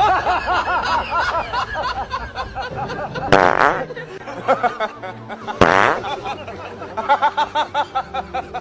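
Two loud fart noises about two seconds apart, each lasting about half a second, with people's voices before and after them.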